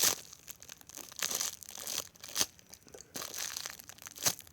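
Crinkly packaging being handled and squeezed, rustling in several irregular bursts around a small homemade squishy.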